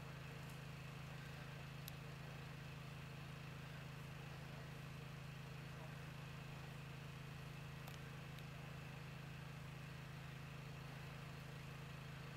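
Faint steady low hum, with a few scattered faint clicks.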